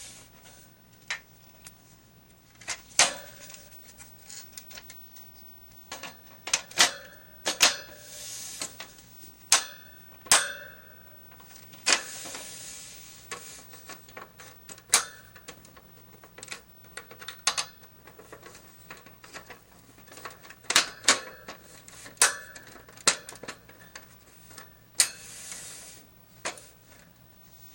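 Plastic and wire parts of a hamster cage being handled and snapped together: irregular sharp clicks and clacks of plastic and wire, with a few short scraping rustles.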